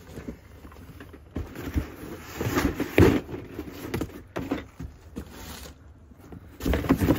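Cardboard boxes rustling, sliding and scraping against each other as they are handled and lifted out of a larger cardboard box, in irregular bursts, loudest about three seconds in and again just before the end.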